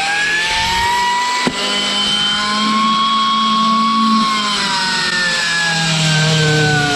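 Electric angle grinder running steadily while it sharpens a lawnmower blade in place. Its whine slowly rises in pitch, then sags as the grinder is pressed onto the blade, and a single sharp click comes about one and a half seconds in.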